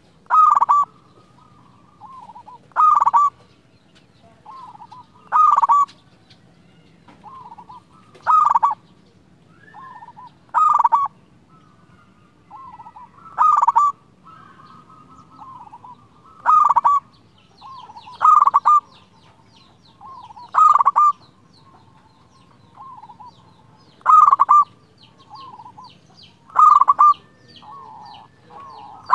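Zebra dove (perkutut) cooing: a loud, clear coo phrase repeats about every two to three seconds, with softer rolling coo notes between.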